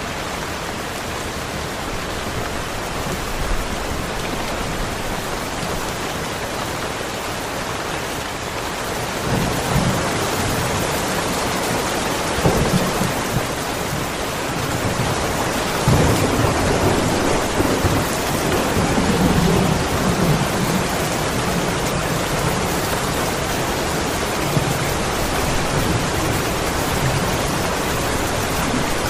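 Steady rain falling, with low rumbles of thunder rolling in from about a third of the way through and lasting longest just past the middle.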